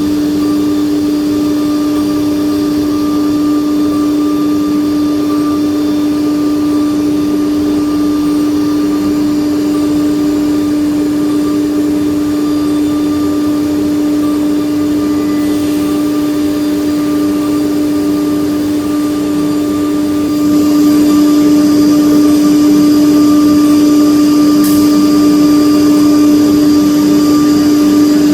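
CNC machining centre running, its spindle holding one steady high whine over a bed of machine noise, growing louder and hissier about twenty seconds in.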